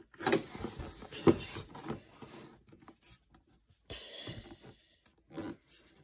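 Paper pages of a hardcover book being turned and handled: rustling with sharp crinkles and clicks, busiest in the first two seconds, then a few softer handling noises.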